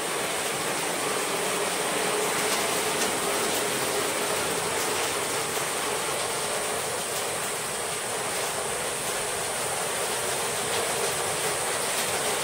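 Steady rushing and splashing of a hillside waterfall, its water falling continuously onto rock.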